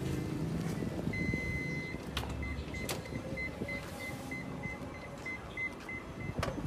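Minivan's power sliding door closing: its warning beeper gives one long beep, then short beeps about three times a second while the door moves, with a couple of clicks along the way. The door shuts with a thud near the end.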